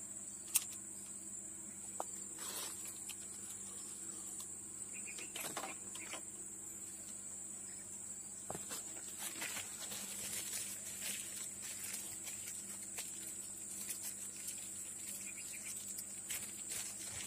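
Steady high-pitched insect chorus, with a sharp click about half a second in and scattered faint ticks and rustles.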